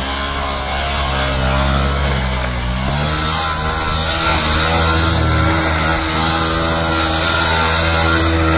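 A vehicle engine running steadily, its pitch shifting a little in the first few seconds and then holding even, with a hiss over it.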